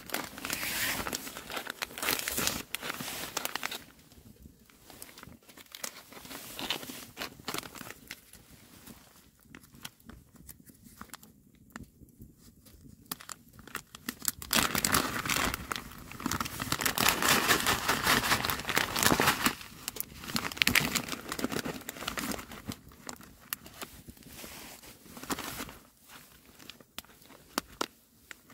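Paper meal pouch crinkling as it is handled, then torn open along its top, with the loudest crinkling and ripping about halfway through.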